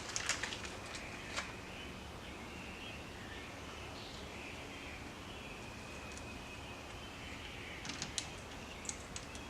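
Small sharp clicks and taps of M5 hex screws and an Allen key being worked in to fasten a steering wheel to its quick-release hub, a few near the start and a few near the end. Faint bird chirping in the background between them.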